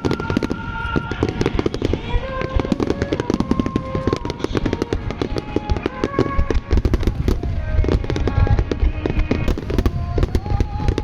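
A large fireworks display firing continuously: rapid cracks and deep booms of shells bursting, one on top of another. Music with a slow, held melody plays over the bursts.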